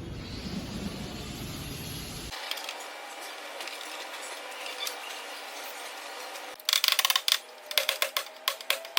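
Rapid, irregular metallic clicking and clinking that starts about two-thirds of the way in and is the loudest sound. Before it, a low rumble cuts off abruptly about two seconds in, leaving faint background hiss.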